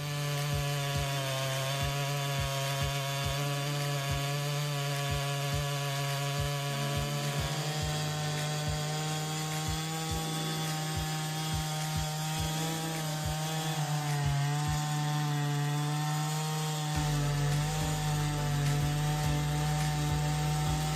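Chainsaw held at full throttle while cutting wood. Its engine note stays steady, with slight dips in pitch.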